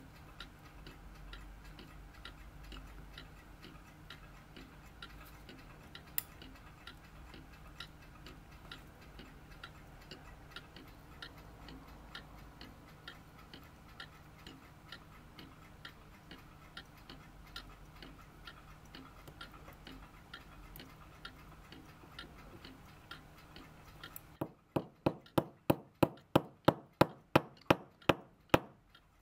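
Mechanical clock ticking steadily, faintly, about three ticks a second. Near the end, louder and sharper ticks at about the same rate take over.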